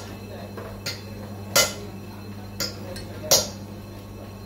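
Sharp metal-on-metal clinks and knocks, four of them a second or so apart, from hand work on a car shock absorber strut whose coil spring is held down in a lever-bar spring compressor; a steady low hum runs beneath.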